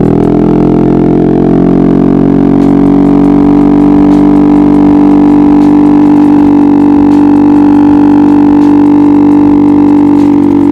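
Yamaha XMAX scooter's single-cylinder engine and exhaust running loud at steady high revs under throttle while riding, holding one constant pitch.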